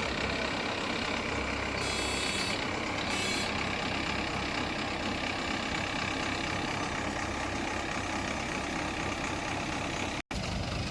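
Heavy farm machinery's engine, a tractor's or the harvester's, running steadily, with a brief dropout about ten seconds in.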